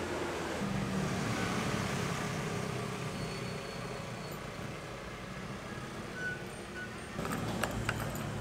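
A motor vehicle's engine hums steadily at a low pitch. Near the end come several sharp clicks and a key jangling as a key goes into a motorcycle's ignition.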